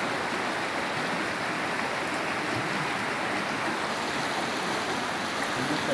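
Fast-flowing river water rushing over rocks, a steady, unbroken rush.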